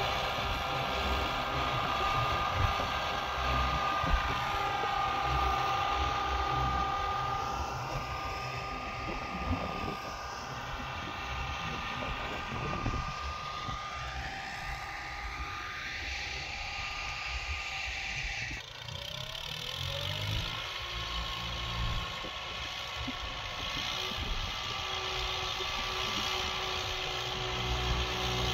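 Kubota 21 hp mini tractor's diesel engine running steadily while pulling a seed drill through tilled soil.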